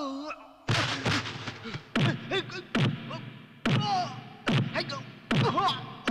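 Movie fight sound effects: a quick run of sharp punch and kick impacts, about eight in six seconds, each followed by a short grunt or cry from the fighters.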